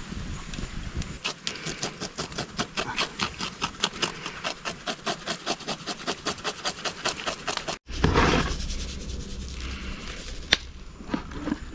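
Fast, rhythmic scraping, about six strokes a second, that stops abruptly at an edit about eight seconds in. Rougher noise with a few sharp clicks follows.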